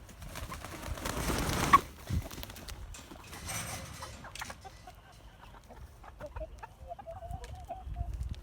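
Two bursts of rustling noise with a sharp click between them, then faint, wavering farm-animal calls in the second half.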